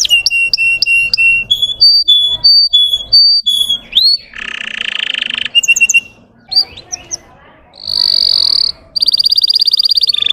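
Russian canary singing: a string of clear repeated notes at about four a second, then a buzzy phrase, a short pause, a held whistle and a fast rolling trill near the end.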